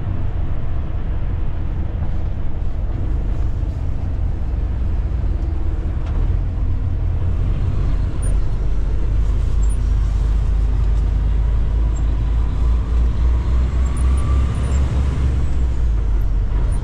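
Tractor-trailer engine and road noise from inside the cab while driving: a steady low drone.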